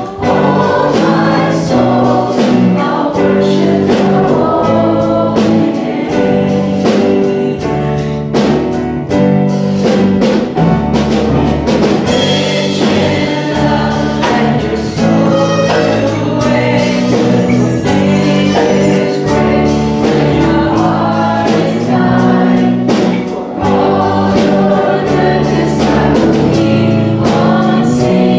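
Live contemporary Christian worship song: a female lead vocal with backing singers over electric guitar, bass guitar, keyboard and a drum kit keeping a steady beat.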